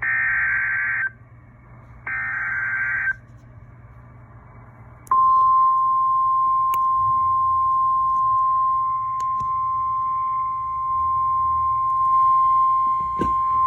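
Weather radio emergency alert (SAME/EAS) header: two buzzy data bursts of about a second each, a second apart. After a short pause, the steady single-pitch 1050 Hz weather radio warning alarm tone starts about five seconds in and holds. The alarm tone signals that a severe thunderstorm warning broadcast follows.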